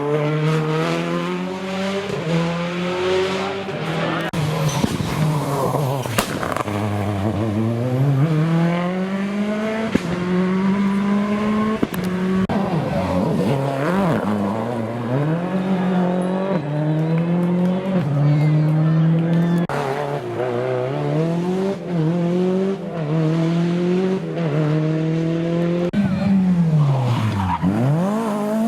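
Historic rally car engine driven hard on a stage, its pitch climbing in short steps through repeated upshifts and dropping sharply twice, about a quarter of the way in and near the end, as it slows and then pulls away again.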